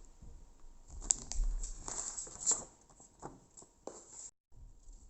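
Hands handling and rustling product packaging, with irregular light taps and a few sharper clicks.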